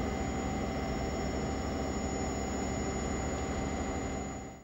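Steady machinery noise of a lime works: a constant hum with a few thin, steady whining tones over it. It fades out near the end.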